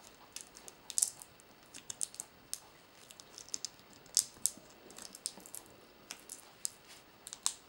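Small plastic packet being handled and picked at by hand: faint, irregular clicks and crinkles of plastic.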